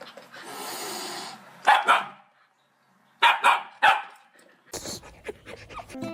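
A dog barking: two sharp barks, a short pause, then three more.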